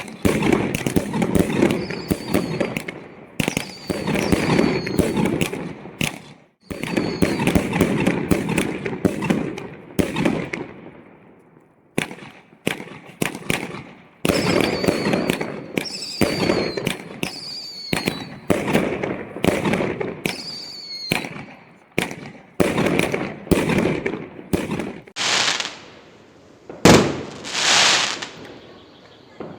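Fireworks going off: repeated sharp bangs and crackling volleys, some with short high whistles, then two loud hissing whooshes near the end.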